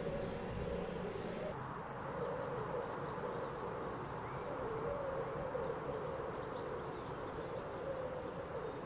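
Faint bird chirps over a steady, wavering hum.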